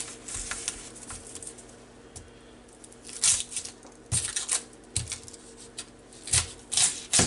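A kitchen knife cutting the ends off an onion on a plastic cutting board: scattered clicks and scrapes of the blade through the onion and against the board, sparse at first and busier in the second half.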